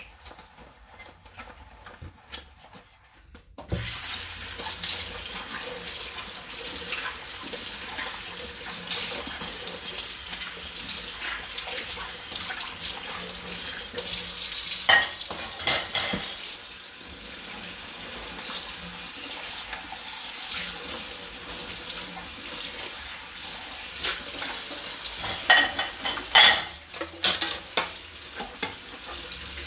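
Dishes being washed at a kitchen sink: a few light clinks, then the tap is turned on about four seconds in and water runs steadily, with louder knocks of dishes against the sink or each other a few times.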